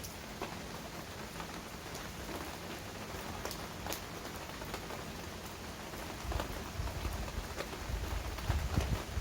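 Heavy rain falling steadily on hard surfaces, with scattered sharp drips and splats. From about six seconds in, a low rumble rises beneath it and is loudest near the end.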